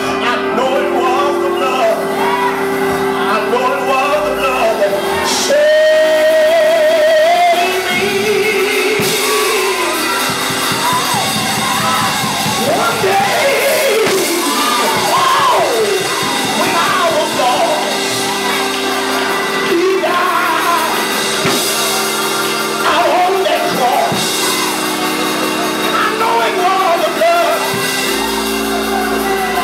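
A preacher's amplified voice chanting the sermon in a sung, shouted cadence over sustained instrumental chords. The voice rises and falls in long held phrases.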